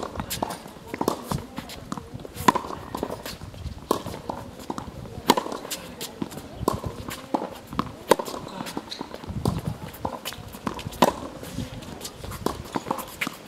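Tennis balls struck by racket strings, a sharp pop about every three seconds, with smaller knocks of ball bounces and footsteps on the hard court in between.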